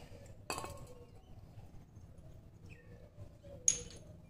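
Metal hand tools or small metal parts clinking as they are picked up and set down. There is a light clink about half a second in and a louder, ringing clink near the end.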